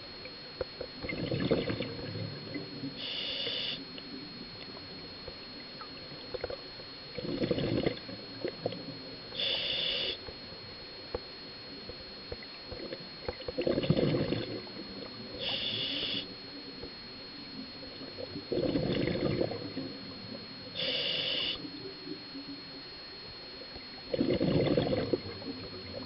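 Scuba diver breathing through an open-circuit regulator underwater: each exhale is a loud burble of bubbles, followed about two seconds later by the shorter hiss of an inhale, about one breath every six seconds. Five exhales and four inhales are heard, over a faint steady high-pitched tone.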